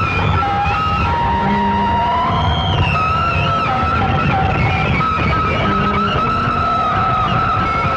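Industrial noise music played from a cassette transfer: a dense, steady low rumble with several wavering, sliding tones layered above it, one high tone held through most of it.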